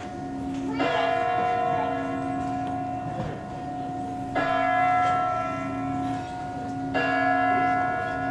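Kremlin Spasskaya Tower clock chimes from the New Year television broadcast, played over the room's speakers: a large bell struck three times, about a second, four seconds and seven seconds in, each stroke ringing on and fading slowly.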